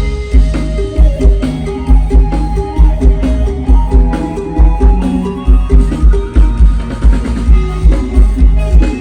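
Upbeat Thai lam phloen band music with a heavy bass beat pounding about three times a second under a melody line.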